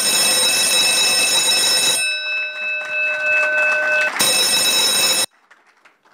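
Loud electronic alarm ringing, a bell-like ring that signals the five-minute speaking time is up. It thins to a few steady tones for about two seconds, rings fully again, and stops suddenly about five seconds in.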